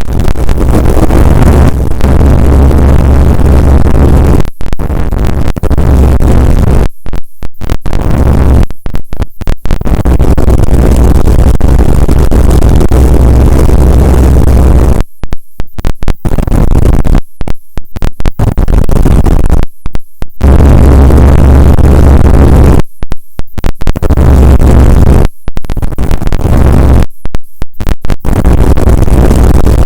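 Bass boat running at speed across open water, its engine all but buried under heavy wind roar on the microphone. The sound drops out abruptly for short moments again and again, mostly in the second half.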